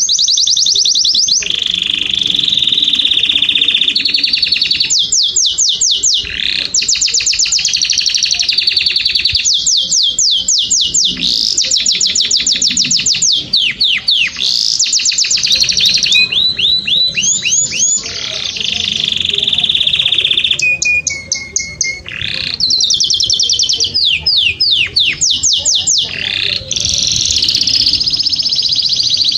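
Domestic canary singing a long, continuous song of rapid trills: runs of quickly repeated high notes, many sweeping down in pitch, alternating with buzzing rolls. The song switches to a new trill every second or two, with only brief breaks.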